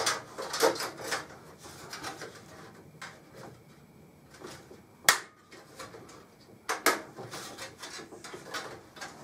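Sheet-metal I/O shield being pressed into the back of a PC case: a series of light clicks and knocks, with two sharper clicks about five and about seven seconds in.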